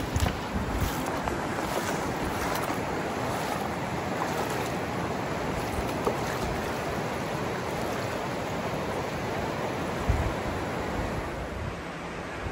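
Steady rush of the North Fork of the Virgin River flowing over rocks and shallow riffles, with a few low thumps on the microphone near the start and about ten seconds in.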